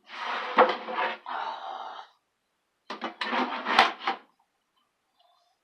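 Wooden flat-pack furniture parts scraping and sliding against each other, with a knock in each of two stretches.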